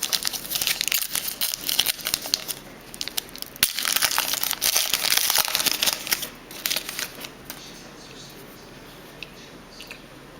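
Crinkly trading-card pack wrapper being handled and crumpled, with sharp crackles, for about six seconds, then dying down to quieter card handling with a few light ticks.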